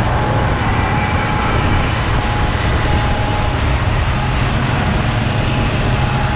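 John Deere tractor's diesel engine running steadily under load, pulling a John Deere 568 round baler that is picking up and baling cornstalks. The baler's drive and the crop add a steady mechanical din over the engine's low drone.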